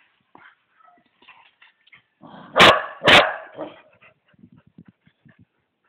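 Dog barking twice in quick succession during rough play between two dogs, the two barks loud and about half a second apart, with smaller scattered sounds around them.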